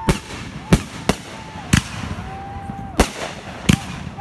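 Consumer aerial fireworks bursting overhead: six sharp, irregularly spaced bangs in about four seconds, with a thin whistling tone between some of them.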